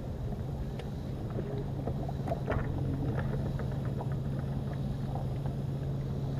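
Bass boat sitting on the water with a steady low hum and scattered light ticks and knocks.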